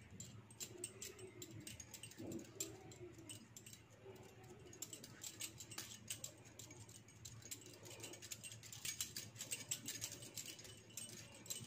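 Hands pinching and pressing a potato-stuffed wheat dough ball closed to seal an aloo paratha, heard as many faint, small clicks and taps.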